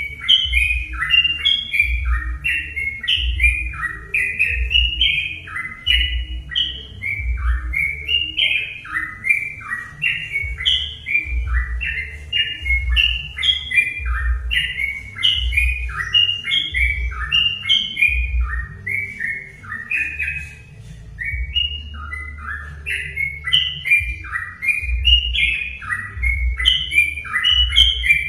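Yellow-vented bulbul (trucukan) song: a quick, unbroken stream of short chirping phrases repeated over and over, played as a lure recording to get other trucuk birds singing. A low thudding runs underneath.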